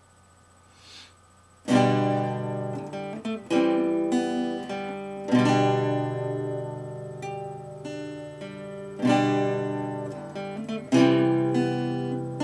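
Solo acoustic guitar: after a near-silent second and a half, strummed chords start and ring out, a strong strum every couple of seconds left to decay, with lighter notes in between.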